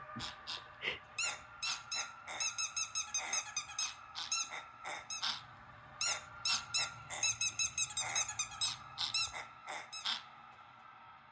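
Rapid series of short, high-pitched squeaks in quick clusters, over a faint steady tone.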